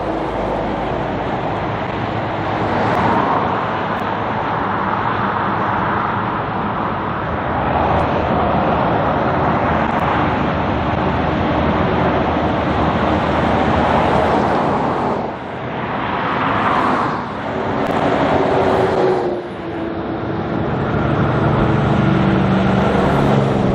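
Heavy diesel trucks with trailers passing close by on a highway one after another. Each pass brings a swell of engine and tyre noise, with brief lulls between passes. Near the end, another truck's engine note grows louder as it approaches.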